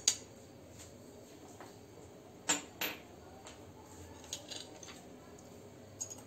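Steel spoons clinking against a ceramic plate: two sharp clinks about two and a half seconds in, then a few lighter ticks.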